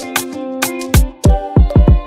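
Background music with a steady beat: pitched instrument tones over regular percussion, with deep sliding bass notes coming in about a second in.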